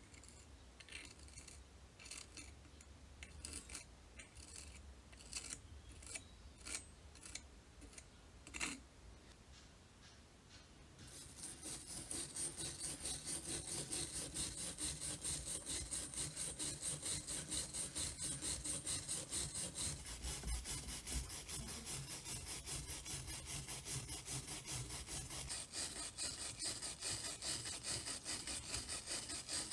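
A small steel wire brush scrubbing rust off a heavy iron hammer head in fast, even back-and-forth strokes. Before it starts, about a third of the way in, there are only light, scattered scratches and clicks of a metal pick picking dirt out of the hammer's eye.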